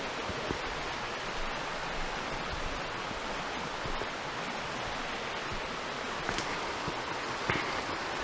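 Creek water rushing steadily over rocks in small rapids.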